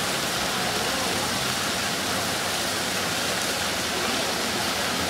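Fountain jets splashing into a pond: a steady rush of falling water.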